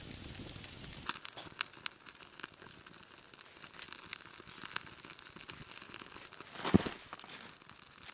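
Wood campfire crackling with many scattered sharp pops, and one louder pop late on. A low steady rush in the first second stops as the crackling begins.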